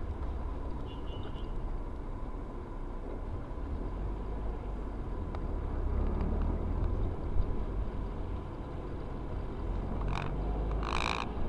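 Steady road and engine rumble heard from inside a car cruising on a highway. Near the end come two short high-pitched sounds, the second longer.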